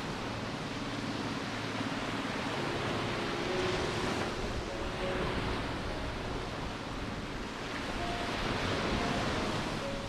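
Small waves breaking and washing up a sandy beach, the surf swelling about four seconds in and again near the end.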